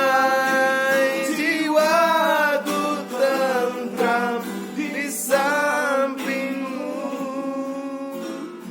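A man singing the closing notes of a song, holding long notes, over a ukulele whose plucked and strummed chords sound like a guitar. The music grows gradually quieter over the last few seconds as the song winds down.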